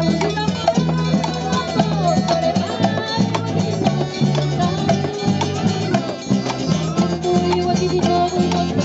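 A live folk band playing an upbeat tune: accordion, acoustic guitars and a shoulder-slung bass drum with cymbal, over a steady beat.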